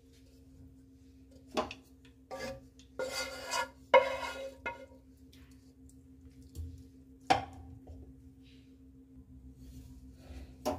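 Metal spoon scraping and knocking against a red cooking vessel and a large aluminium pot as chicken masala is spooned out and spread over rice, with the loudest clank about four seconds in. A faint steady hum runs underneath.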